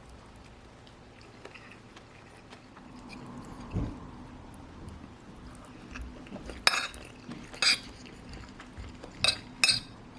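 A spoon clinking against a plate while eating curry: a dull knock about four seconds in, then four sharp clinks in the second half.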